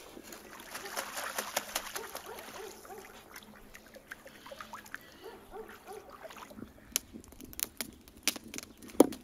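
A wood fire crackling in split kindling, then domestic ducks softly quacking and splashing on a pond. Near the end come a few sharp knocks of stone being handled.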